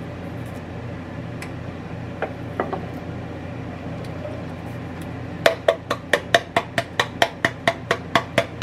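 A rapid run of sharp taps, about five a second, starting about five seconds in: a hand smacking an opened can of black beans to knock the last beans out into the Instant Pot. Before that there are only a few faint clicks over a low steady background.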